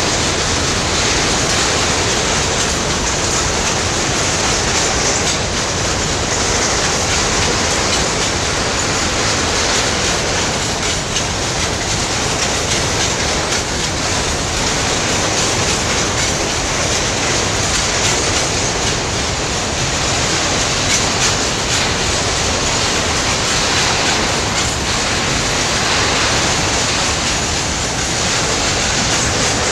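A long freight train of steel open-top wagons rolling past at close range: a steady, loud rumble and clatter of wheels running over the rails.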